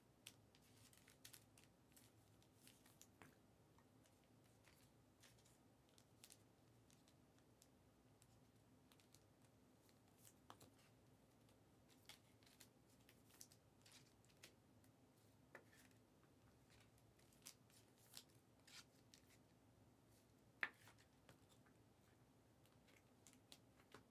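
Near silence with faint, scattered small clicks and ticks of trading cards being handled, one sharper click about 20 seconds in.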